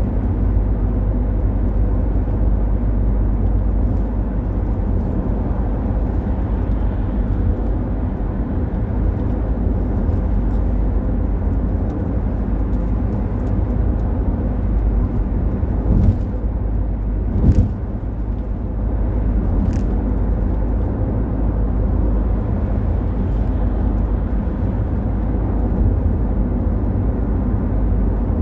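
Steady low road and engine rumble of a moving car, heard from inside the cabin. A few brief thumps and clicks stand out a little past halfway.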